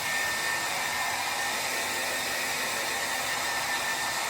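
Hair dryer running steadily while blowing over a dog's coat: an even rush of air with a thin, high, constant whine.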